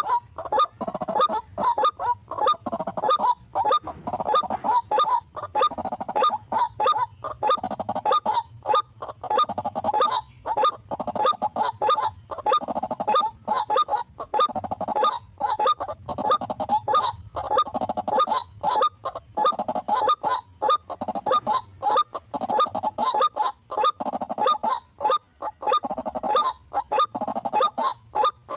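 White-breasted waterhens (ruak-ruak) calling: a continuous run of harsh, rapid, honking calls, several a second.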